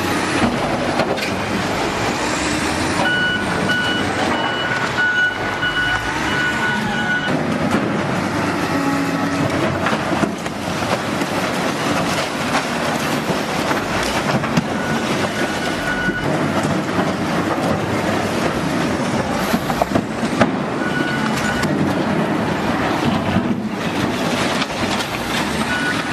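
Heavy demolition machinery running with a steady rumbling din and occasional knocks, while a high warning beep sounds in stretches of a few seconds, several times.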